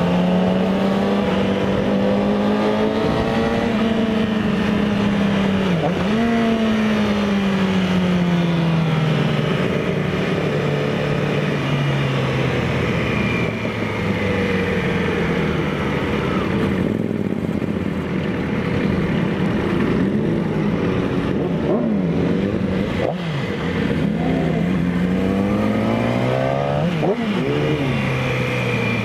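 Motorcycle engine heard from the rider's own bike, its pitch climbing under acceleration and dropping sharply at each gear change, several times over, with steady wind and road noise underneath.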